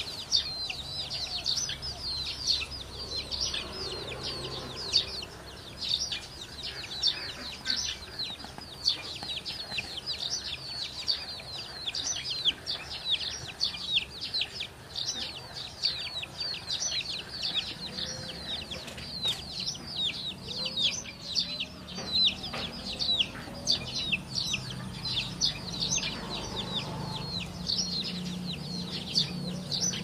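Continuous high-pitched bird chirping, several short falling chirps a second, with a few soft low clucks from farmyard chickens mixed in.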